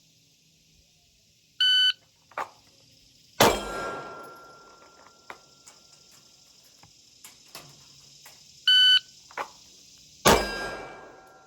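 Handgun drill timed by a shot timer: a beep, a short click, then a single pistol shot with a ringing tone lingering for a couple of seconds after it. The sequence happens twice, about seven seconds apart.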